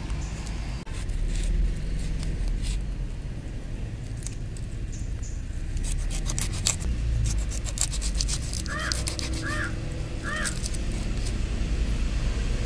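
A large knife chopping and scraping through a tilapia on a wooden log: a run of sharp knocks and clicks in the middle. Three short bird calls come a few seconds before the end, over a steady low rumble.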